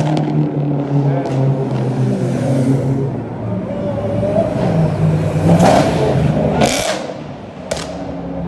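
Car engine running and revving, its pitch dipping and rising again, amid crowd voices, with two brief loud bursts of noise a little past the middle.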